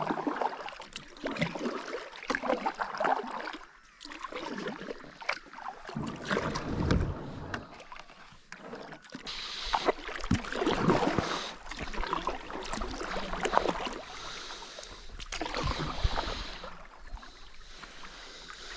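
Kayak paddle strokes dipping and splashing in river water, coming in uneven swells every second or two.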